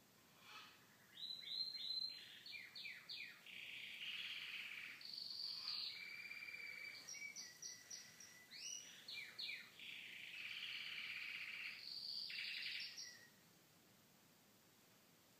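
Birdsong: a run of high chirps, quick falling whistles, held whistled notes and buzzy trills, stopping about two seconds before the end.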